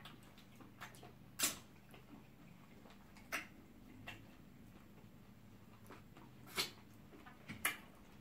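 Wet mouth and eating noises from people eating eba with okra soup by hand: a few short sharp smacks and clicks of lips and chewing, spread unevenly, over a faint steady hum.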